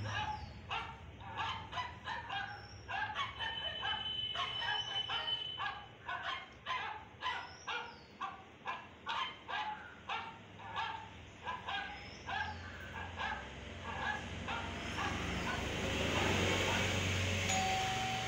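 A dog barking over and over in short barks, about two a second, which die away about three-quarters of the way through. It is a barking sound played to the Indian Spitz puppy, which stays quiet and pants. A broad rush of noise swells near the end.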